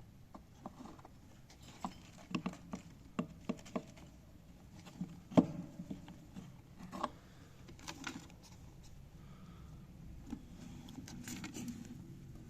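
Irregular light taps and clicks, several in quick succession, the loudest about five and a half seconds in, as of a pet bird's beak and feet on its perch or cage.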